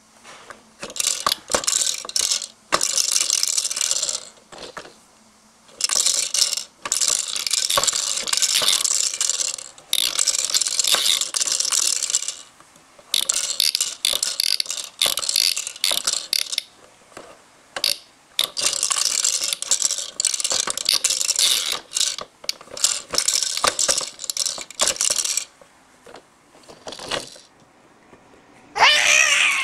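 Rattling, ratchet-like clicking in repeated bursts of a second or two with short pauses between them, as a baby shakes or works a noisy toy. A short high voice sounds near the end.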